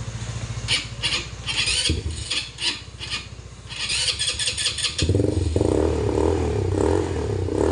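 A 200cc ATV being started: a low rapid cranking pulse for the first couple of seconds and short high squeals, then about five seconds in the engine fires and keeps running with a pulsing idle.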